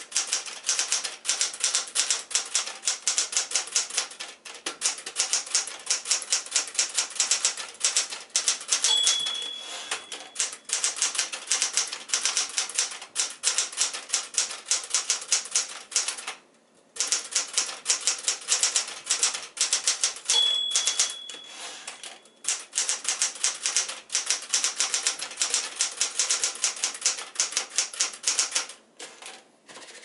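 Smith-Corona Galaxie Deluxe manual typewriter being typed on at a fast, steady pace, its typebars clacking against the platen in quick runs of keystrokes. The margin bell dings twice, about 9 s and 20 s in, as lines near their end. There is a short pause in the typing a little past halfway, and the typing stops near the end.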